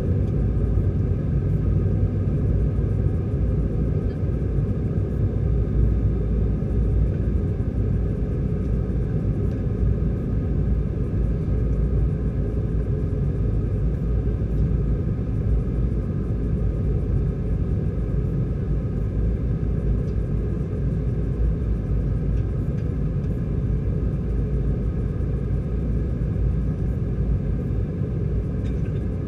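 Steady low rumble inside the cabin of an Airbus A320-214 in flight on descent: its CFM56-5B engines and the airflow over the fuselage, heard from a window seat over the wing. A faint steady whine sits above the rumble.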